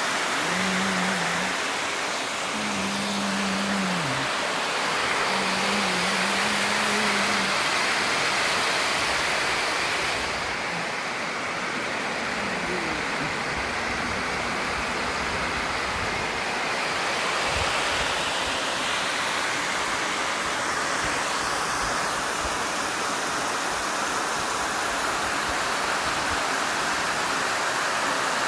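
Water overflowing a dam's concrete spillway weir and rushing down its face: a steady, even roar of water that turns duller for several seconds midway.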